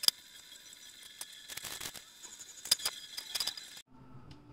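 Wood stove with its blower running: a faint steady high whine with scattered sharp clicks and clinks. It all cuts off abruptly near the end.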